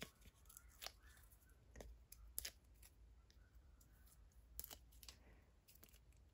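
Near silence, with a few faint, short clicks and rustles of small pieces of paper and card being handled in the fingers.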